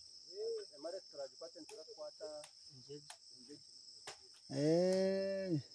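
Insects trilling in a steady, high, continuous drone, with faint talk under it. Near the end a person's voice holds one long drawn-out sound for about a second.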